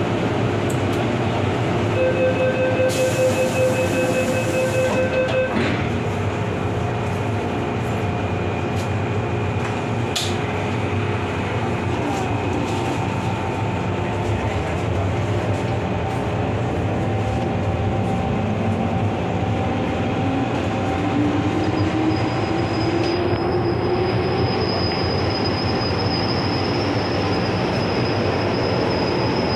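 MTR M-Train metro train running between stations with a steady rumble of wheels on rail. A pulsing tone sounds for a few seconds near the start, a whine rises in pitch about two-thirds of the way in, and a high, steady wheel squeal sets in shortly after and holds.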